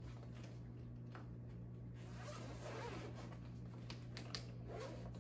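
Zipper of a drone's carrying case being pulled open: a faint rasping slide, with a few small clicks near the end.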